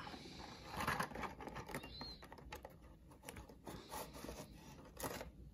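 A Hot Wheels three-pack blister card being handled and pried open by hand: its cardboard backing and plastic blister make a run of scratches, scrapes and small clicks.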